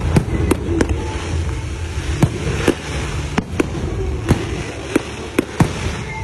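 Aerial fireworks display: a dozen or more sharp bangs of bursting shells at irregular intervals, about two a second, over a continuous noisy wash.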